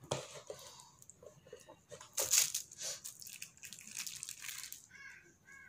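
Plastic crinkling and light clicks as a small plastic cap is pressed down through a ball of donut dough onto a plastic sheet to cut the hole. The loudest crinkles come about two seconds in.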